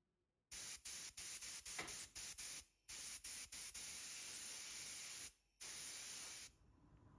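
Pressurised spray hissing in on-off bursts, like a trigger being squeezed and released: many quick interruptions at first, then two longer stretches of a couple of seconds each, cutting off about six and a half seconds in.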